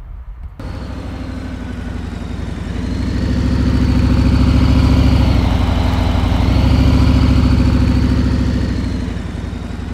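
Harley-Davidson Limited touring motorcycle's V-twin engine running at low speed through a tight U-turn, a steady low pulsing that grows louder about three seconds in and eases off near the end.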